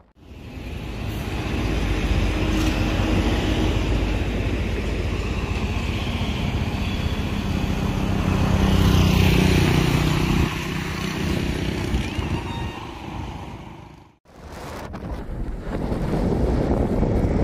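Motorcycle running at road speed with wind on the microphone. The sound fades out briefly about fourteen seconds in, then picks up again.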